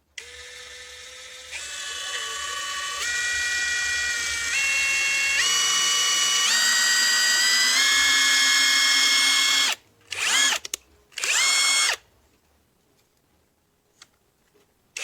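Brushless cordless impact driver motor spinning free without hammering, its whine stepping up in pitch several times as the speed is raised. It stops after about ten seconds, then gives two short bursts that rise in pitch as they spin up.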